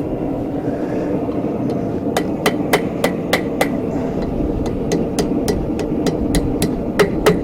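Hammer blows on a hot steel bar over the anvil as a forged loop gets its finishing touches. Runs of quick light strikes, about three to four a second, start about two seconds in, with short pauses between the runs.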